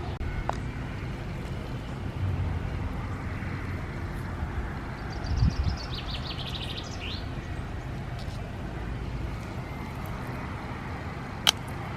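Steady low rumble of distant traffic, with a small bird twittering in short quick chirps about halfway through. There is a soft thump midway and a sharp click near the end.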